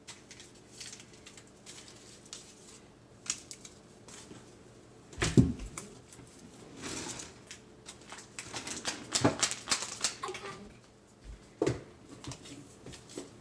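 Paper Kool-Aid drink-mix packets being handled and shaken so the powder settles to the bottom: scattered crinkling and clicking, with a single knock about five seconds in and a denser run of rustling around nine to ten seconds.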